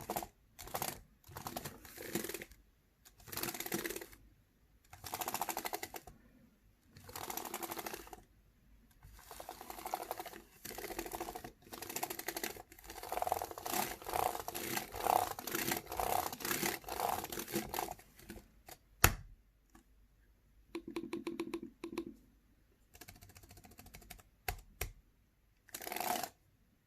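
Typing on a computer keyboard: runs of rapid key clicks lasting a few seconds each, with short pauses between them. About nineteen seconds in comes one single louder click, then a few separate keystrokes and a last short run of typing.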